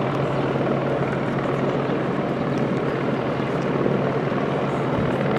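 Steady engine drone with a constant low hum, unchanging in level.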